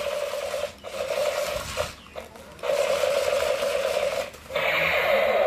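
Battery-powered toy AK-47-style machine gun firing: a fast buzzing rattle in repeated bursts of one to two seconds, four in all, with short breaks between them.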